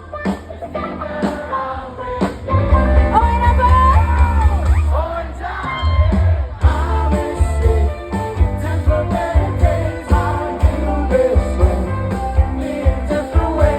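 A rock band playing live through a PA, with heavy bass and drums under a melodic lead line that bends and glides in pitch.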